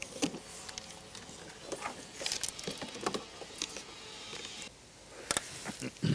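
Plastic windscreen cowl panel and trim cover of a VW Passat CC being unclipped and lifted off: irregular clicks and knocks of plastic clips and panels.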